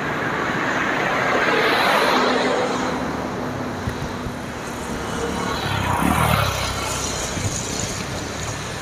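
Road traffic: vehicles driving past on the street, their tyre and engine noise swelling and fading, once about two seconds in and again around six seconds.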